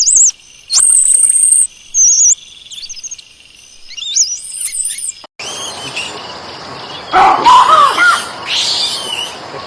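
Monkeys calling with high, thin whistles: one long steady whistle and several short warbling slides. About five seconds in, the sound cuts to a noisier recording with louder squealing calls that rise and fall.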